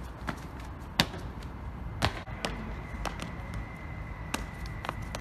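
Shoes striking stone paving as a freerunner takes off and lands, heard as a series of sharp knocks, the loudest about a second in, over a light outdoor rumble. A steady high tone comes in a little after two seconds in.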